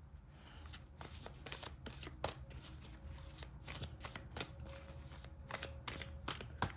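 A tarot deck being shuffled by hand: a quiet, irregular run of card riffles and light clicks.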